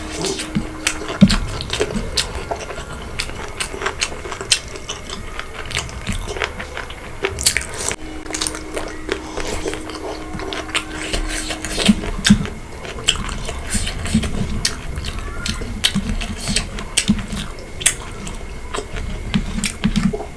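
Close-miked chewing and lip-smacking of someone eating pork curry with bamboo shoot and rice, full of short wet smacks and clicks throughout.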